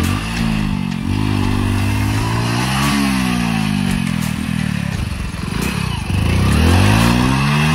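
Hero Splendor motorcycle's single-cylinder four-stroke engine revving up and dropping back several times, getting louder near the end.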